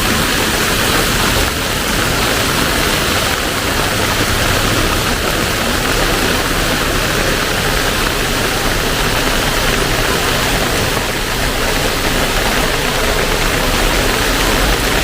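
Heavy rain pouring down in a steady, loud hiss, with a low rumble underneath.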